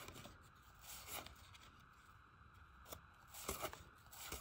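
Cardboard baseball cards being slid off a hand-held stack one at a time. They make a few faint papery swishes about a second apart.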